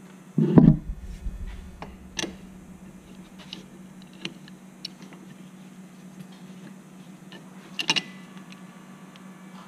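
A thump about half a second in, then scattered light metallic clicks of an adjustable wrench on an ATV's front axle nut, whose threads are stripped, with a sharper clatter of metal near the end. A steady low hum runs underneath.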